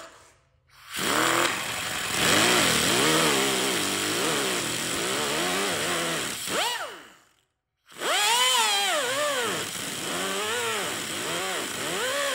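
Electric angle grinder cutting into the rusty sheet steel of a car body's hinge pillar, its whine dipping and rising as the disc bites into the metal. It runs for about six seconds, stops briefly, then starts up and cuts again.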